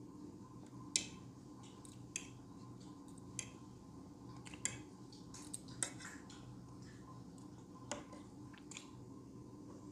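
Metal forks clicking and scraping on a ceramic plate as pancake is cut, a sharp click about once a second, with soft chewing in between over a faint steady hum.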